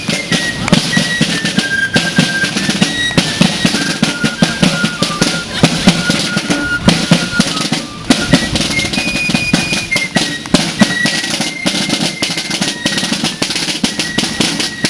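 Fife and drum corps playing a march: fifes carry a high, stepping melody over field drums beating a steady, busy cadence. The tune pauses briefly about eight seconds in, then resumes.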